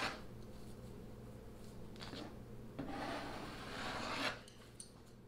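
Metal putty knife scraping silica-thickened epoxy glue along a plywood joint. There is a short stroke about two seconds in, a longer one from about three to four seconds, and a small click near the end.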